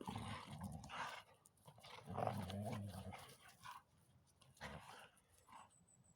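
Dog growling in three low, rumbling spells with short pauses between them, the sound of a dog guarding its ball from another dog.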